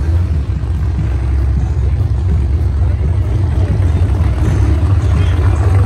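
Modified Jeep Cherokee engine, hood off, running steadily with a deep, low rumble, growing a little louder near the end.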